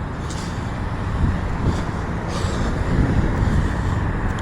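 Road traffic on a city street: a steady rush of passing cars.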